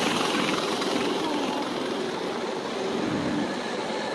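Steady road and wind noise of a moving car, with passing traffic.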